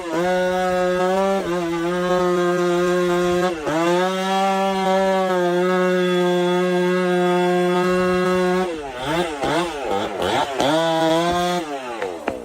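Two-stroke chainsaw running at full revs as it saws into a tree trunk, its note dipping briefly a few times. About three quarters of the way through, the revs rise and fall rapidly several times, then the saw stops shortly before the end.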